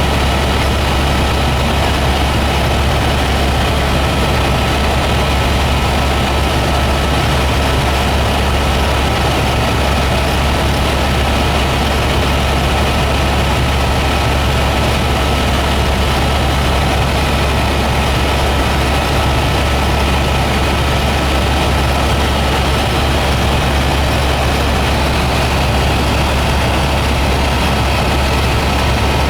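Helicopter engine and rotor noise, loud and unchanging, with a strong low hum and a thin steady whine above it.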